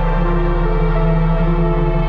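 Slow ambient background music: held notes that change every half second or so over a steady low drone.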